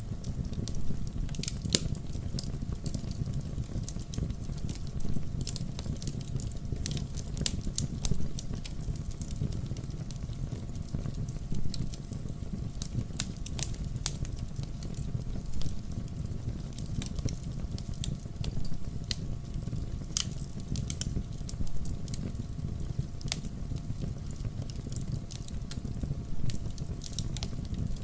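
Wood fire burning in a fireplace with a steady low rumble and frequent sharp, irregular crackles and pops.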